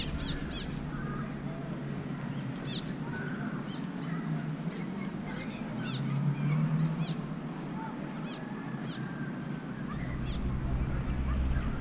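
Birds chirping repeatedly with short, high calls over a low rumble that grows louder about ten seconds in.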